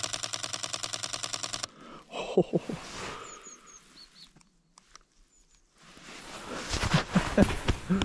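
Sony A7IV's mechanical shutter firing a rapid burst, about fifteen frames in under two seconds, then stopping. A few faint, high bird chirps follow, and near the end there is rustling with some knocks.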